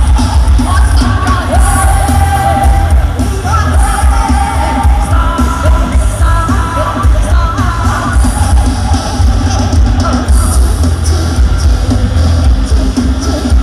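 Live music from an Isan rot hae sound-truck band heard from about 350 metres away: heavy bass dominates, with singing over the band.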